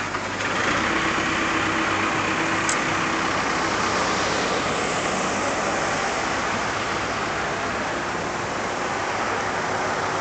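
Floodwater rushing steadily across a flooded street, a continuous noise with a low steady hum underneath.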